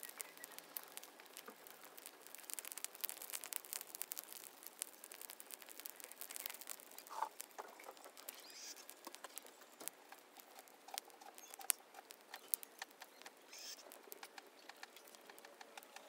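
Smouldering heap of dry weeds and grass crackling with many small snaps and pops, busiest in the first few seconds. A few faint bird calls come through around the middle and near the end.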